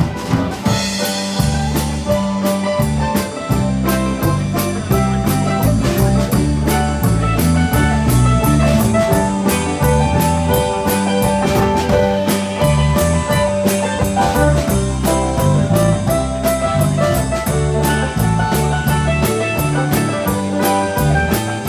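Live band's instrumental break: mandolin solo over strummed guitar, a bass line and a steady drum beat.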